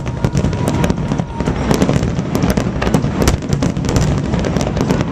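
Fireworks finale: a dense, rapid barrage of shells bursting, many sharp bangs and cracks a second over a continuous low rumble, with a faint whistle in the first second.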